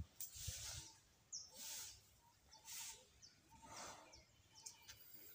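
Near silence: faint outdoor ambience with soft swishing noises about once a second and a brief, faint bird chirp about a second in.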